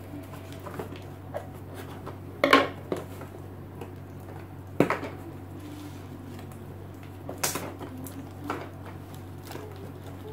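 Hands and scissors at work on a taped cardboard parcel: a few separate sharp clicks and knocks of hard items being handled.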